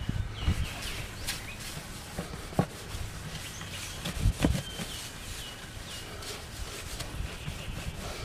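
Cloth rag rubbing swirl-remover polish over a Martin acoustic guitar's spruce top, with a few light knocks of hand and rag on the guitar body. Birds chirp in the background.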